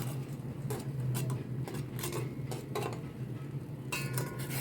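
A pot of herbal kahwa cooking on the stove: scattered light clicks and clinks over a steady low hum.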